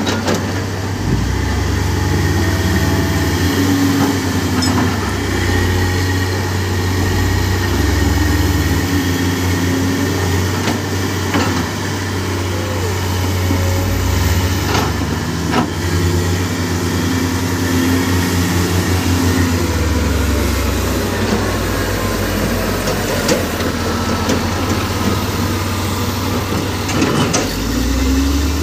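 Heavy diesel engines of a tracked excavator and a wheel loader working in mud and rock, the engine note rising and falling with the load, with a few sharp knocks.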